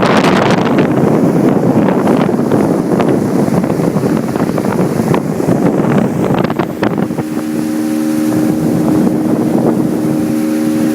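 Motorboat under way, with loud rushing wind and water noise and a few sharp knocks. About seven seconds in, a steady engine hum with several tones rises above the rush.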